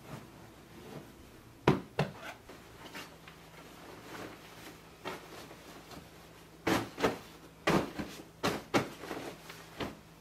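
Pillows being handled on a bed: soft thumps and pats with fabric rustling as a pillow is plumped and worked into its pillowcase. There are two sharp knocks about two seconds in and a quick run of thumps over the last few seconds.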